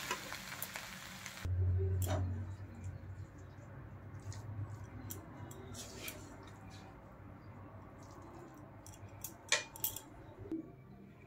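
Scattered light clicks and clinks of a utensil against a ceramic serving bowl as cooked food is served, with a couple of sharper clicks near the end. A low hum comes in about one and a half seconds in and fades a few seconds later.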